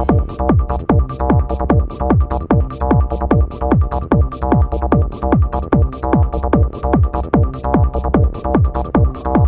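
Electronic trance/techno music: a steady four-on-the-floor kick drum, a little over two beats a second, with ticking hi-hats over a held synth chord.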